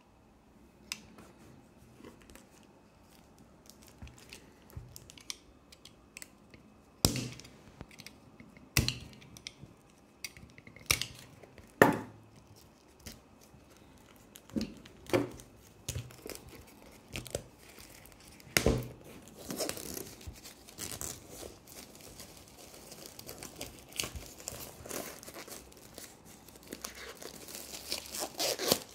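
Clear plastic shrink wrap being torn and peeled off a cardboard Blu-ray box set. A few sharp clicks come in the first half, then steady crinkling and tearing of the plastic from about two-thirds in, loudest near the end.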